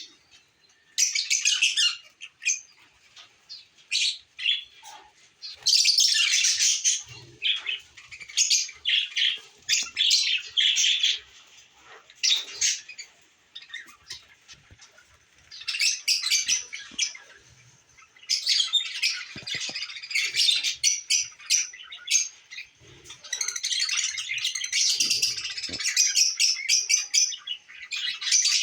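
Several pet birds chirping and chattering in quick high-pitched bursts of a few seconds each, with short pauses between and a denser stretch of chatter in the second half.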